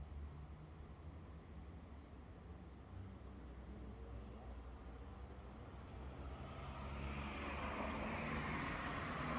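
Crickets trilling steadily in a finely pulsing high tone over a low rumble. About two-thirds of the way through, a rushing noise swells up and drowns the trilling.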